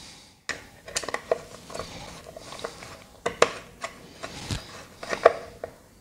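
Screwdriver turning the fixing screw of a plastic stove power socket's cover: a run of small, irregular clicks and scrapes of metal on screw and plastic, with a few sharper clicks past the middle.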